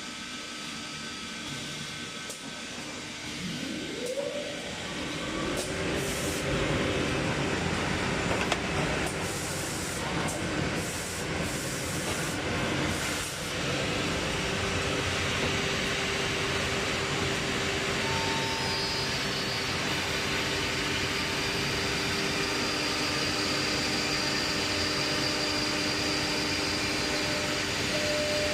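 CNC drilling and milling machine running: a spindle whine rises as it spins up about four seconds in and settles into a steady tone, with a run of short hisses and knocks in the middle, then an even, steady running sound.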